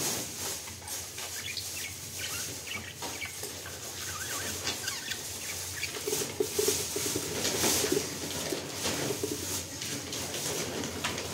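Pet budgerigars chirping and chattering in a cage: many short, high calls throughout, with a lower, buzzing stretch for a second or two about six seconds in.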